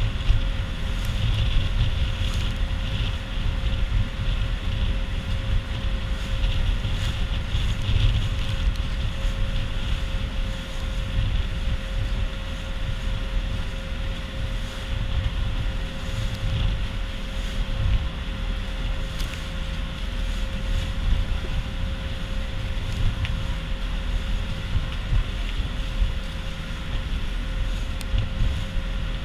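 Outrigger boat's engine running steadily underway, a constant low drone with a steady hum, and wind buffeting the microphone.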